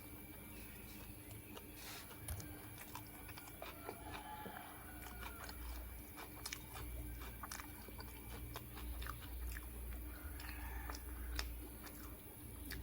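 A man chewing and biting food close to the microphone: irregular small wet clicks and smacks of the mouth, steady throughout.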